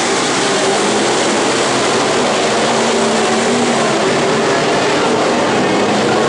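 Engines of several dirt-track stock cars running around the oval, a loud, steady drone heard from the grandstand.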